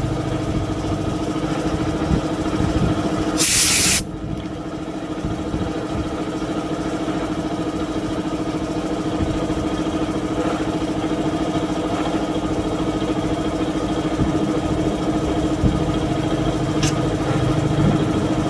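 Small petrol engine running steadily, with a short loud hiss of spray about three and a half seconds in.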